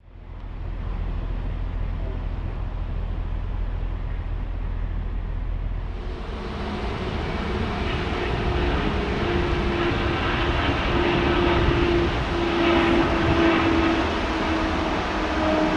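A steady low rumble, then from about six seconds in a twin-engine jet airliner flying low past with its engines running, a whine in the noise that drifts slightly lower in pitch near the end.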